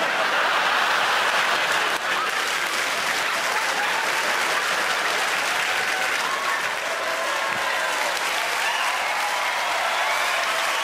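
Live theatre audience applauding: a dense wash of clapping that breaks out suddenly and keeps going at a steady level.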